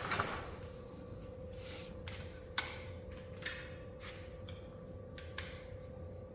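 A handful of light, sharp taps and clicks at irregular intervals, the loudest about two and a half seconds in, from paintless dent repair tools working a dent in an aluminium car hood, over a steady low hum.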